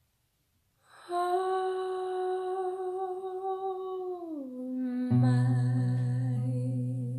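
A woman's voice, hummed or sung softly, starts about a second in and holds one long note, then slides down to a lower note. About five seconds in, an acoustic guitar enters with a low bass note ringing under the voice.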